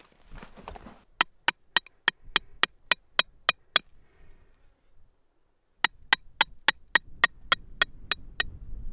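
Metal tent pegs being hammered into hard clay ground with the head of a small hatchet. There are two runs of about ten sharp, ringing metal-on-metal strikes, roughly three a second, with a short break between them.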